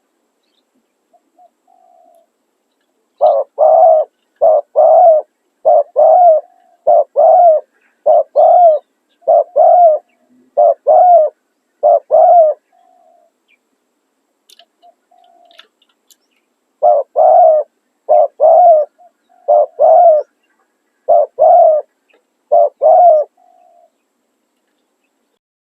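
Spotted dove cooing: loud phrases of paired coos repeated in two long runs with a short pause between them, and fainter coos in the gaps.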